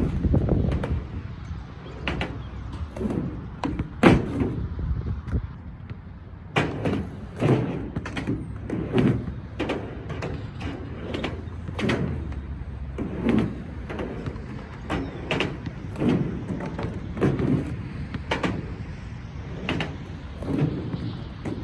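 Skateboard wheels rolling with a steady rumble, broken by many sharp clacks and knocks of the board and trucks, about one every second or so.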